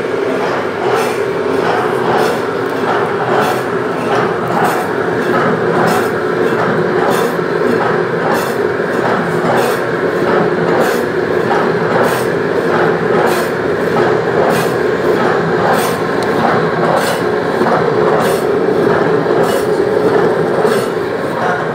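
Frozen-meat slicing machine running, with its blade cutting frozen beef in a regular stroke about one and a half to two times a second over a steady motor hum.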